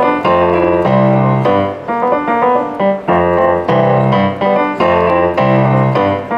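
Yamaha digital piano played with both hands: a right-hand melody over left-hand bass chords that change about once a second.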